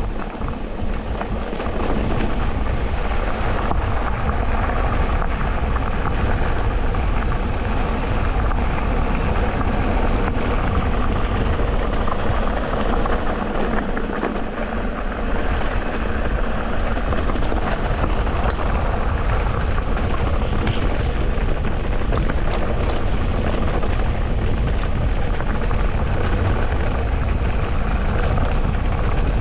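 Electric mountain bike ridden along a dirt trail: a steady rumble and rattle of tyres and bike over rough ground.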